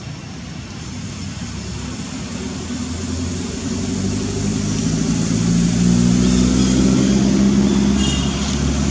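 A motor vehicle's engine running as it drives close by, growing steadily louder over several seconds, then its pitch starting to drop as it passes near the end.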